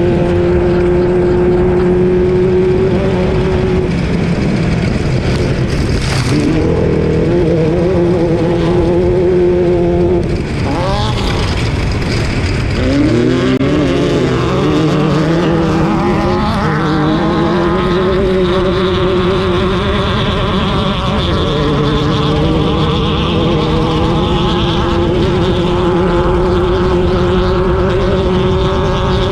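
Off-road race car's engine running hard at high revs, its pitch dipping and climbing back several times as the throttle lifts and comes on again, over constant rumble and wind noise.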